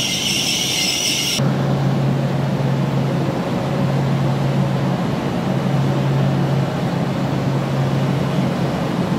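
Double-decker regional train's wheels squealing to a stop, the squeal cutting off sharply about a second and a half in. Then the standing train's steady rumble with a low hum that switches on and off every second or two.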